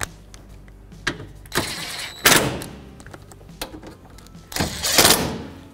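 Electric ratchet running bolts down: two whirring bursts of about a second each, about two seconds in and again about five seconds in, one for each of the top two bolts.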